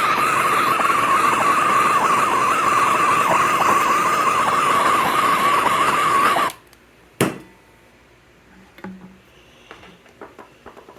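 Heat gun running steadily, a whir with a steady whine, warming a rubber oil hose to soften it; it is switched off about six and a half seconds in. A sharp click follows, then a few faint handling knocks.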